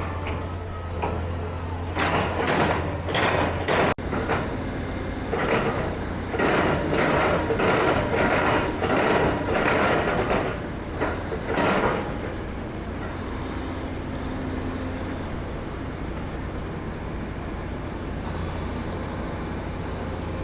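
Steady road-traffic hum. For about ten seconds a loud run of short rushing bursts comes through it, roughly two a second, then stops, leaving the hum.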